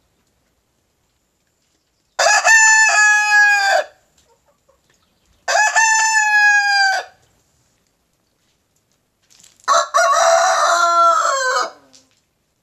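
Rooster crowing three times, each crow about two seconds long with short silences between. The first two crows come from a white Leghorn rooster; the third, about ten seconds in, is lower-pitched and rougher.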